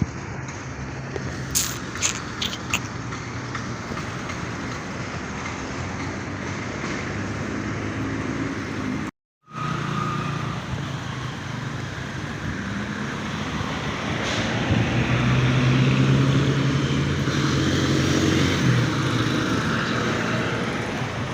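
Road traffic passing close by: vehicle engines and tyre noise, swelling loudest as a vehicle goes past about two-thirds of the way through. The sound drops out completely for a moment near the middle.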